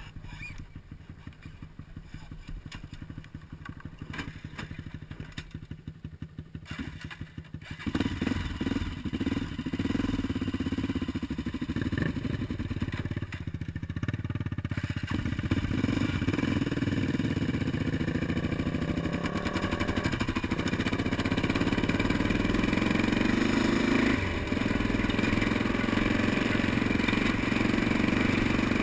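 Honda sport quad's single-cylinder four-stroke engine idling with a fast, even pulse, then revving up suddenly about eight seconds in and running louder under load as the quad rides off along a gravel trail, the level dipping and rising with the throttle.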